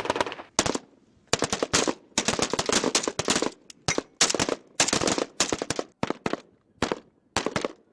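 Automatic gunfire in short, rapid bursts with brief pauses between them; the bursts get shorter and more spaced out toward the end.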